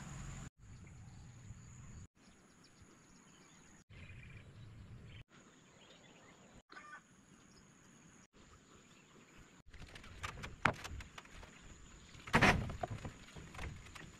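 Quiet outdoor ambience broken by several abrupt cuts, with a faint steady high-pitched whine. In the last few seconds, wooden timber planks are knocked and handled, with sharp knocks and a louder scraping thump near the end.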